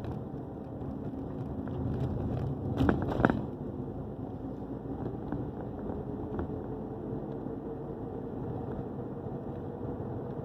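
Steady low road and engine rumble inside a vehicle's cabin, with a faint steady hum. About three seconds in comes a brief clatter of a few sharp knocks, the loudest moment.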